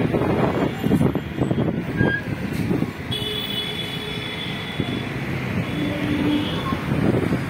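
Road traffic noise: vehicle engines and tyres running in dense traffic, heard from a moving vehicle, with a brief higher steady tone about three seconds in.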